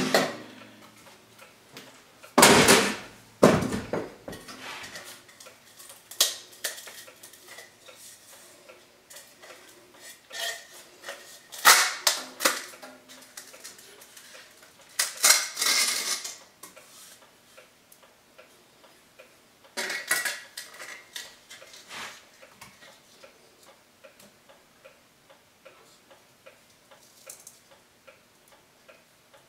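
Thin black sheet-metal stove-pipe parts, a trim ring and a crimped pipe piece, clattering and scraping as they are handled and fitted together. The sound comes in several short bursts of rattling, with light ticks in between.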